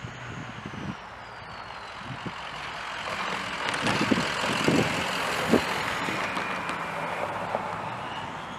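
Distant Norfolk Southern diesel freight locomotives approaching with a steady low engine hum. A rushing noise swells up about three seconds in and fades again near the end, with a few low thumps around the middle.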